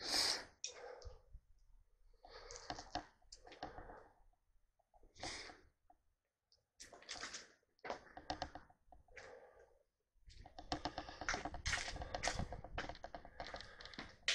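Footsteps crunching over debris on a littered floor: an irregular run of small crackles and clicks with short pauses, becoming a dense, continuous crunching for the last few seconds.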